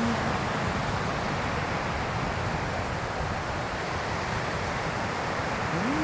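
Ocean surf washing onto a sandy beach, a steady rushing noise mixed with wind buffeting the phone's microphone.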